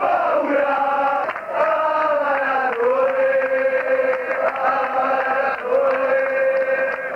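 A large crowd of male football ultras singing a terrace chant in unison, with several long held notes in the melody.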